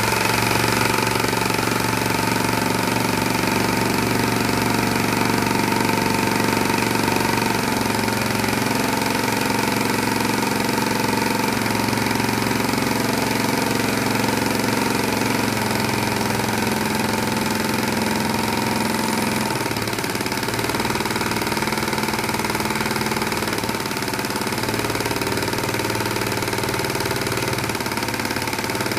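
Compressed-air engine running steadily under an automatic speed controller. Its sound changes in steps several times as the controller opens and closes the air valves, bringing the speed up to about 1,400 rpm and back down toward a 1,000 rpm target.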